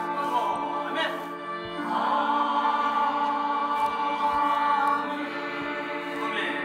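Church choir singing a hymn, holding one long chord through the middle before the notes move on.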